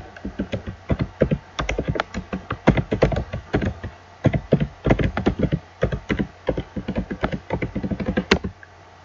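Typing on a computer keyboard: a long run of quick keystrokes, ending with one louder key strike a little past eight seconds in, after which the typing stops.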